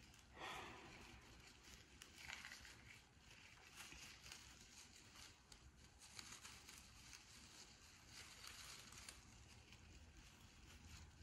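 Faint rustling and crinkling of a tinsel garland and the plastic needles of a small artificial Christmas tree as the garland is wrapped around it and the tree is turned in the hands.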